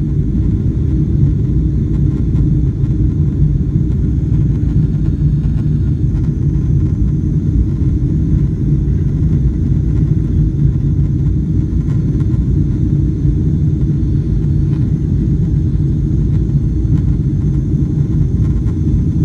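Steady low rumble of a Boeing 777-300ER heard from inside the passenger cabin, even throughout with no rise or fall.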